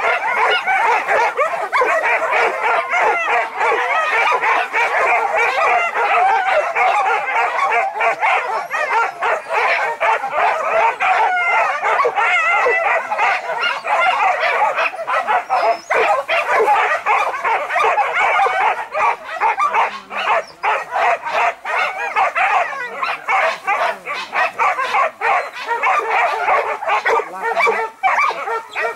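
A pack of hunting dogs yelping and baying, many high calls overlapping without a break, as dogs do when chasing on the scent of wild boar.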